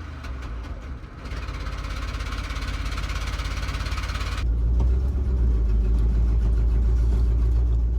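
A motor vehicle's engine running with a steady low rumble. A rushing hiss sits over it from about a second in and cuts off abruptly about four and a half seconds in, after which the rumble is louder.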